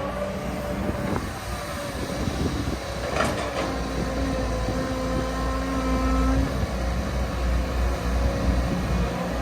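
Caterpillar 315D L hydraulic excavator working: its diesel engine runs steadily under load with a held hydraulic whine, and there is a short clatter about three seconds in.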